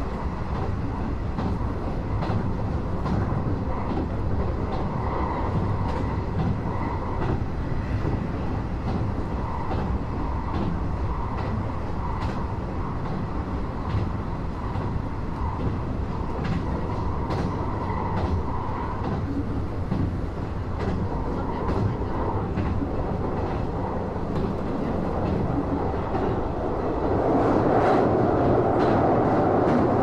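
Interior of a Nishitetsu Tenjin Ōmuta Line limited express train running on the line: a steady rumble of wheels on rail, with scattered clicks over the rail joints. About 27 seconds in, the noise grows louder and fuller.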